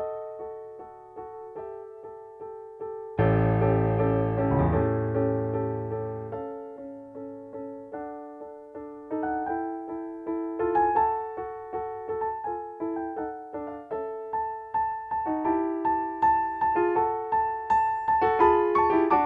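Background piano music: a slow melody of struck, fading notes, with a deep low chord about three seconds in and a busier run of notes in the second half.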